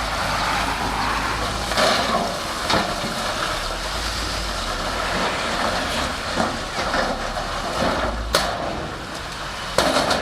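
Shantui SD16 bulldozer's diesel engine running steadily, with a few sharp metallic clanks, the loudest a little after eight seconds and just before the end.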